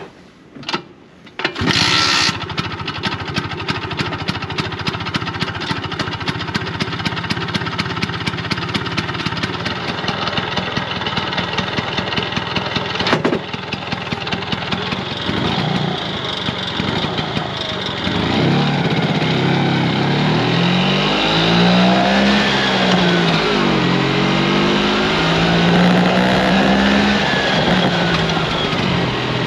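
Vespa scooter engine starting about two seconds in, then idling with a regular tick. From a little past halfway it pulls away, the engine note rising and falling as the throttle opens and closes.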